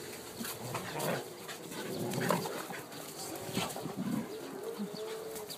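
Doodles and a poodle growling in play as they wrestle, with scuffling and short clicks from paws on wet muddy ground. A drawn-out, wavering note sounds in the second half.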